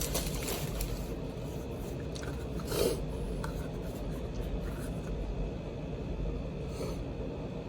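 Quiet handling noises as an alarm-system keypad and its wrapping are rubbed and moved, with one brief louder scrape about three seconds in.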